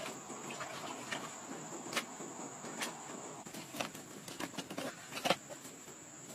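A steady, high-pitched insect drone like crickets chirring, with scattered short clicks and rustles of hands handling things, the sharpest about five seconds in.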